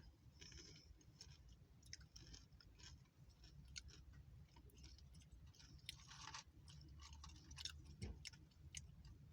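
Faint chewing of Taco Bell Nacho BellGrande: tortilla chips loaded with beans, beef and cheese, with scattered soft crunches and small mouth clicks.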